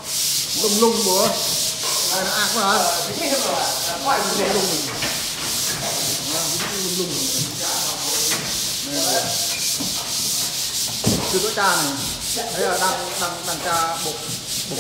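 Drywall pole sander rasping back and forth over dried joint compound on a ceiling: a steady, scratchy hiss that pulses with each stroke.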